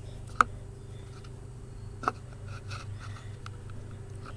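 Two sharp clicks about a second and a half apart, with a few faint ticks between them, over a low steady hum.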